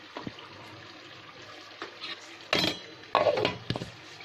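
Clinks and knocks of a steel mixer-grinder jar being handled, a few sharp strikes with the loudest about two and a half and three seconds in, over a low steady background.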